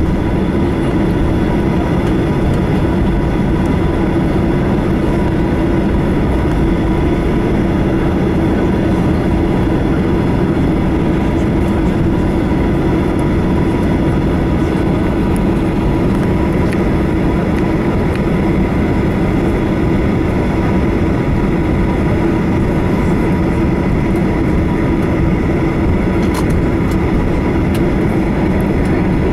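Cabin noise of a Boeing 737-800 taxiing after landing: its CFM56-7B turbofan engines at idle thrust, heard as a loud, steady drone with a faint steady whine above it.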